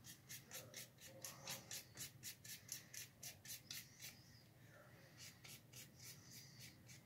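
Faint, quick strokes of a sponge working black acrylic paint onto a foam model-airplane part, about four a second. They pause about four seconds in, then resume more softly.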